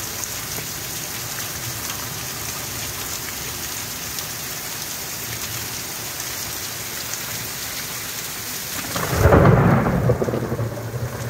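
Heavy rain pouring steadily. About nine seconds in, a loud clap and rumble of thunder lasts for a couple of seconds.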